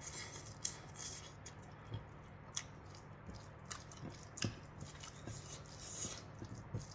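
Close-up mouth sounds of chewing a mouthful of rice and vegetable curry eaten by hand, with scattered soft wet clicks and squishes, followed by fingers mixing food in the bowl.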